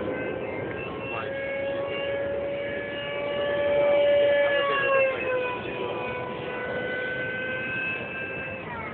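Electric motor and propeller whine of radio-controlled model airplanes in flight: a steady high tone that swells to its loudest about four seconds in, then drops in pitch as a plane passes.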